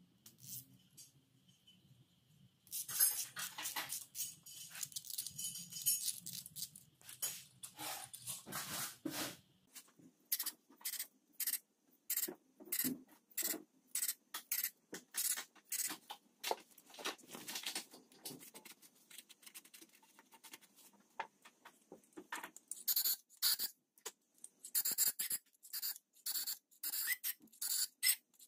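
Aerosol brake cleaner sprayed into an engine block's head stud holes. From about three seconds in there are several seconds of near-continuous hissing, then many short hissing bursts, one hole after another.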